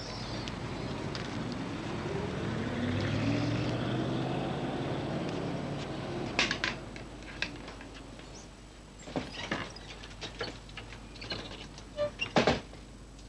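A car passing along the street, its engine note rising in pitch and then fading by about six seconds in. After that come scattered sharp taps of a white cane and footsteps on pavement, and a few louder knocks near the end as the glass door of a phone booth is handled.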